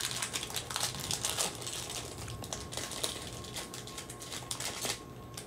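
A stack of glossy trading cards being handled and slid apart between the fingers: a steady run of quick, light card clicks and rustling.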